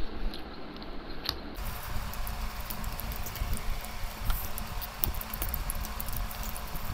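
Two people eating fried noodles with forks: scattered light clicks and scrapes of metal forks against plates, with chewing and slurping.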